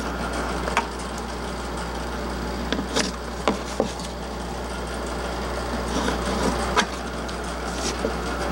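Pencil tracing around a small cap on plywood: faint scratching, with a few light clicks and taps as the cap and pencil are handled. A steady low hum runs underneath.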